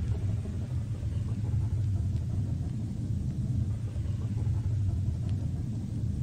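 BMP-1 infantry fighting vehicle's diesel engine running with a steady low rumble.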